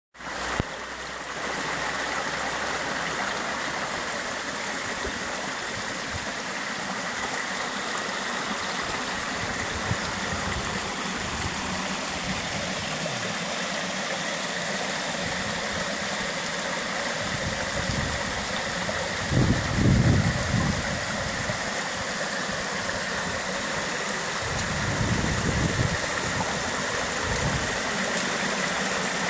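Small forest stream running over rocks and flat rock slabs: a steady rush and splash of water. Low rumbles on the microphone come about two-thirds of the way through, the loudest moment, and again briefly a few seconds later.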